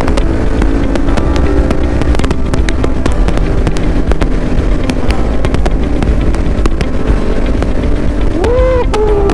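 Kawasaki Ninja 400's parallel-twin engine running at road speed, with rapid crackling of wind buffeting the microphone. A short wavering tone comes in near the end.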